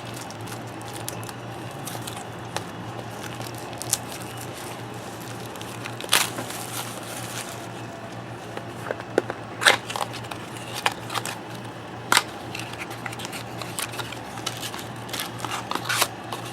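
Trading-card pack wrapper crinkling and being torn open by hand, with cards being handled. There are scattered sharp crackles throughout and a longer tear about six seconds in.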